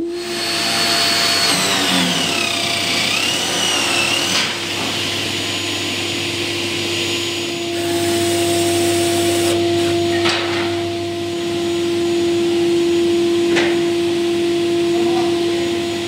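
A workshop motor running steadily, a constant hum over a broad hiss. A wavering higher whine rises and falls in the first few seconds, and two sharp clicks come later.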